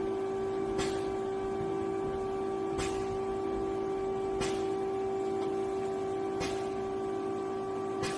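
Nakamura-Tome SC250 CNC lathe running during a test run: a steady mechanical whine with a sharp click about every two seconds.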